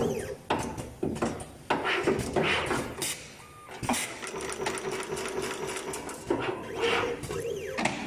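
Multicore cable stripping and ferrule crimping machine cycling: stretches of motor whir broken by several sharp clacks of the stripping and crimping strokes.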